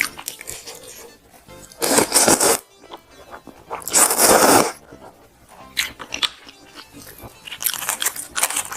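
A person eating fried chicken and instant noodles. There are two loud, noisy bites or slurps, about two and four seconds in, then a run of small crunchy chewing sounds.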